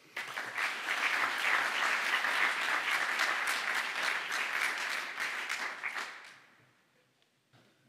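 Audience of a few dozen people applauding, which fades out about six seconds in.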